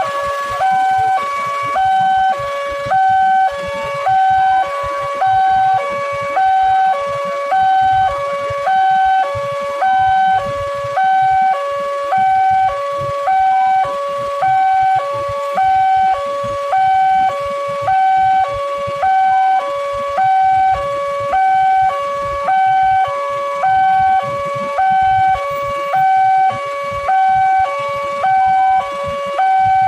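Railway level-crossing warning alarm sounding: an electronic two-tone signal alternating high and low, about one high-low pair a second, steady and loud, warning that a train is approaching and the barrier is down.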